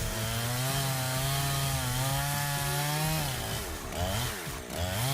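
Husqvarna 372 XP two-stroke chainsaw with a ripping chain, running an Alaskan chainsaw mill through a red maple log: a steady engine note under cutting load, then about three seconds in the engine speed drops and rises twice.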